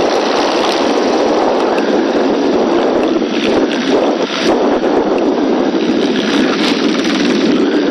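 Steady helicopter noise and wind rushing over the crew's intercom microphone, a loud, even hiss with no speech.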